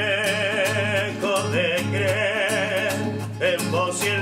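A song, sung in Spanish, with a singer holding long notes with vibrato over instrumental backing with a bass line and a regular beat.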